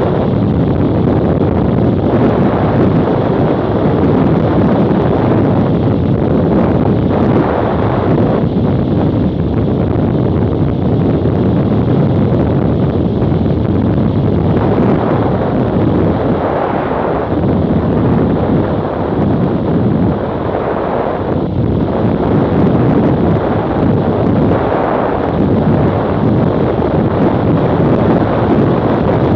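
Loud, steady wind buffeting on the microphone of an action camera on a motorcycle riding at road speed, swelling and easing a little from moment to moment.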